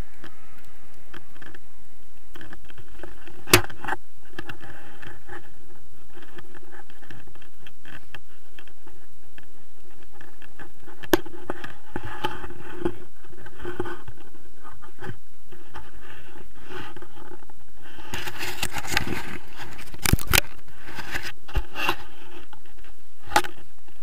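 Handling noise of a camera in paragliding gear: scattered knocks and scrapes over a steady hiss, with a burst of rustling and scraping about three-quarters of the way in.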